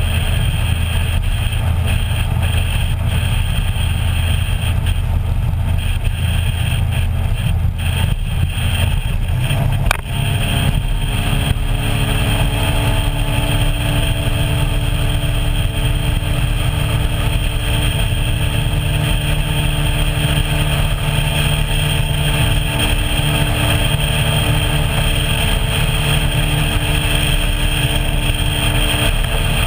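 Motorboat engine running steadily as the boat cruises, with wind and water noise on the microphone. About ten seconds in there is a brief click, and after it the engine's hum comes through as a steadier tone.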